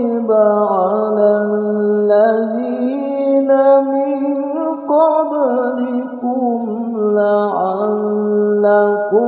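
Male qari reciting the Qur'an in melodic tilawah style, in a low register, holding long ornamented notes whose pitch glides and wavers, with a few short breaks between phrases.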